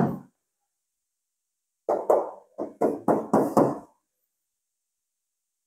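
Knuckles knocking on the sheet-metal body of a 1997 Daihatsu Espass van: one knock at the start, then a quick run of about six knocks about two seconds in.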